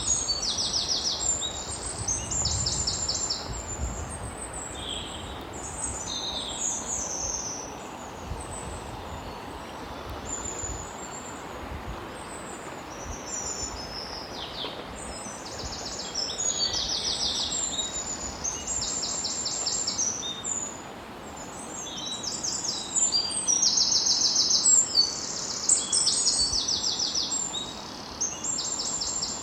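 Birds singing in short, rapid, high-pitched trills, repeated many times, over a steady rushing noise.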